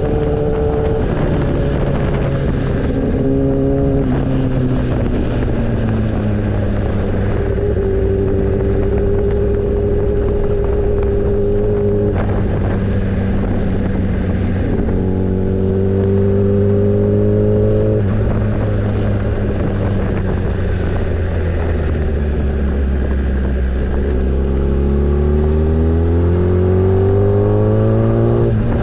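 Motorcycle engine heard while riding, climbing in pitch as it accelerates and dropping back at each gear change, with level cruising stretches between.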